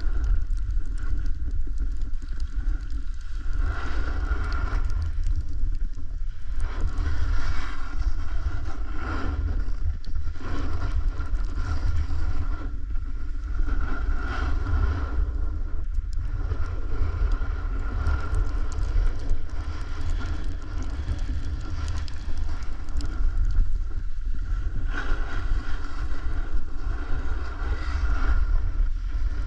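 Wind buffeting the camera microphone of a snowboarder riding downhill, a steady low rumble, with the hiss of the board sliding over snow that swells and dips every few seconds as the rider turns.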